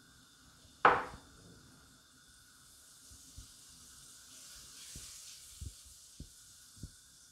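Butter dropped into a hot enamelled stew pot, landing with one loud thump about a second in. It then sizzles faintly as it starts to melt on the gas flame, with a few soft knocks as it is pushed around the pot.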